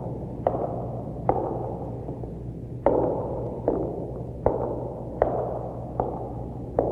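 A recorded horror sound effect of heavy, sharp blows struck over and over, about one every second, each ringing out with an echo, over a steady low tape hum.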